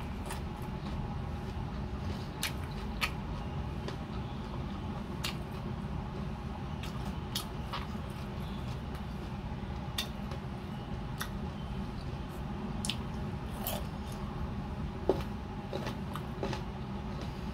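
Close-up mouth sounds of someone eating ripe mango: scattered wet clicks and lip smacks of chewing at irregular intervals, over a steady low hum.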